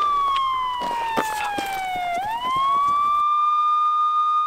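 Police siren wailing: a held tone that glides slowly down for about two seconds, swoops quickly back up and holds again.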